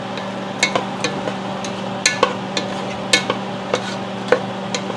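A spatula stirring onions and garlic sautéing in a nonstick pot, with irregular scrapes and taps against the pot. A steady low hum runs underneath.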